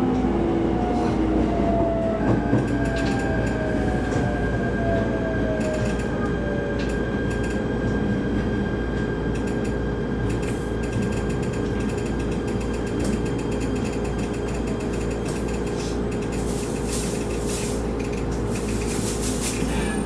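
Shinano Railway SR1 series electric train slowing to a halt, heard from inside the car: the motor whine falls in pitch and fades over the first several seconds, leaving the standing train's steady hum. A run of rapid clicking comes near the end.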